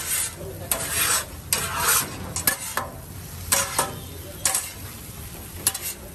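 Two flat steel scrapers scraping and scooping kothu parotta across a hot iron griddle, a rasping scrape about once every half-second to second with a few sharp metal clinks, over a faint sizzle.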